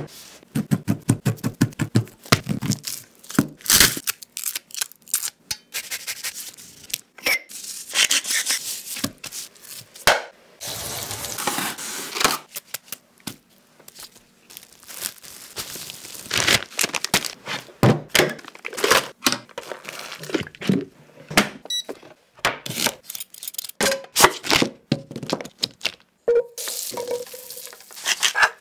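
Close-miked food-preparation sounds in quick succession: thuds and taps of meat handled on a wooden cutting board, crinkling and tearing of plastic wrap, and a pepper mill grinding over a pan near the end.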